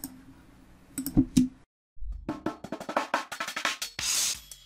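A few short clicks, then a drum-kit loop at 174 BPM starts playing about two seconds in, run through a FabFilter Simplon filter; a hissy cymbal wash comes near the end.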